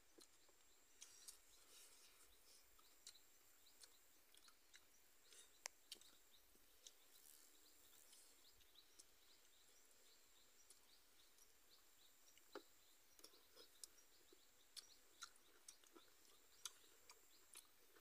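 Faint chewing and mouth clicks, short and irregular, from people eating beef curry and rice by hand.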